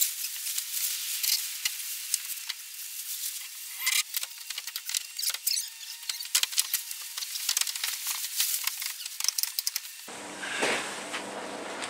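Plastic tarp crackling and rustling, with many small sharp clicks and a few louder ticks. Near the end the sound changes abruptly to a duller, fuller noise.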